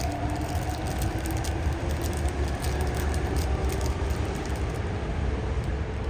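Moving train: a steady low rumble with a faint whine slowly sliding in pitch.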